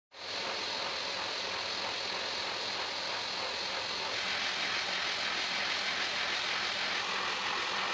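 End mill cutting metal on a milling machine: a steady machining noise that starts suddenly and holds even, with no pauses.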